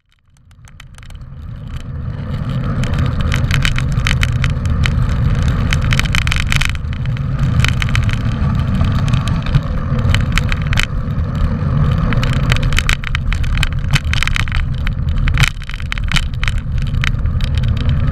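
Mountain bike riding over a rough forest track, heard from on the bike. There is a steady low rumble of wind and tyres, with constant rattling clicks from the bike. It fades in over the first couple of seconds.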